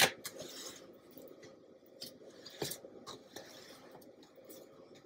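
Plastic spatula scraping and spreading thick cake batter in a disposable aluminum foil pan. A sharp tap at the very start, then faint scraping and rubbing with a few light clicks against the pan.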